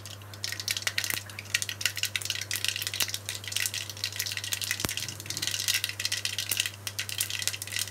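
Mustard seeds spluttering in hot oil in a hammered aluminium kadai: rapid, irregular crackling pops over a sizzle, growing denser about half a second in. This is the tempering stage, with the oil hot enough for the seeds to burst.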